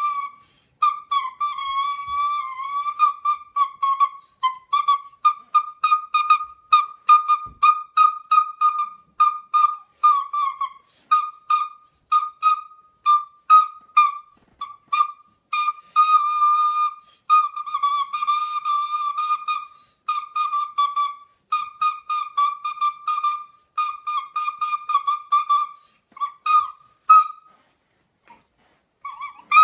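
A recorder playing a melody alone, in many short tongued notes with a few longer held ones, staying within a narrow high range. It breaks off briefly near the end, then carries on.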